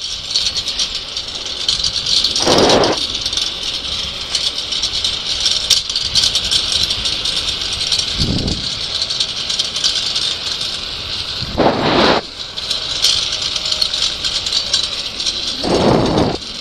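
Trike wheels rolling fast over asphalt, a steady hissing rattle, broken by about four short low rumbles spread across the run.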